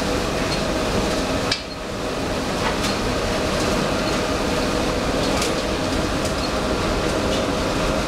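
Steady, loud din of sawdust briquette presses and feed conveyors running together, with scattered metallic clicks and knocks.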